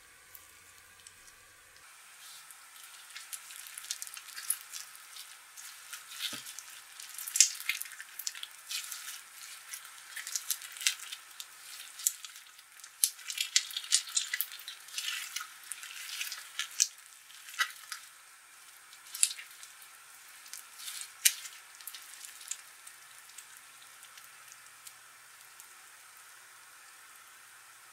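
Pink slime mixed with small foam beads being squeezed and stretched by hand, giving irregular wet clicks and crackling pops that thin out near the end.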